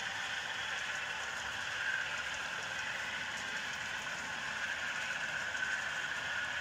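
Model freight train rolling along the layout's track: a steady rolling hiss of many small wheels on the rails as the cars pass.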